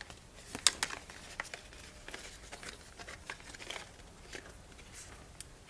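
Thin strips of birch bark crackling and rustling as they are folded and handled, with scattered light clicks, the sharpest about half a second in.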